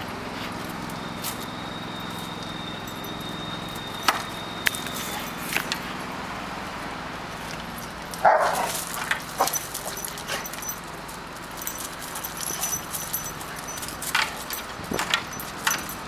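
Dogs at rough play, one giving a single short bark about 8 seconds in, among scattered clicks and scuffles.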